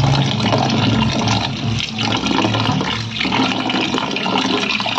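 Tap water running steadily into a stainless steel bowl of raw chicken pieces, splashing over the meat as hands rub and turn it to wash it.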